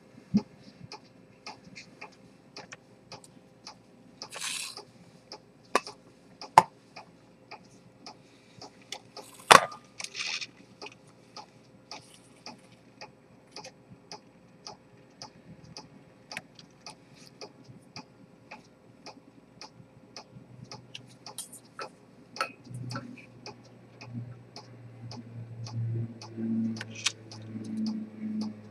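Rose-gold chronometer pocket watch with an Earnshaw spring-detent escapement ticking steadily, about two to three ticks a second. Over it come sharper clicks and rubbing as the hunter case is handled and opened, the loudest click about a third of the way in, and low handling thumps near the end.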